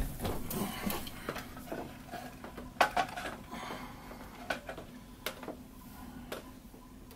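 Handling noise: scattered clicks and light knocks, the loudest about three seconds in, over a faint steady hum.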